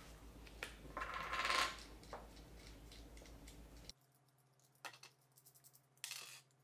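Hands fitting small plastic camera parts together: scattered light clicks and taps with a stretch of rustling in the first two seconds, then a few isolated clicks and a short rustle near the end.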